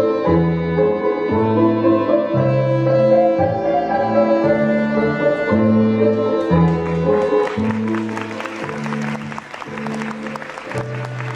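Dance music played on bowed strings over a steady, alternating bass line. About two-thirds of the way in, the audience breaks into applause that carries on over the music.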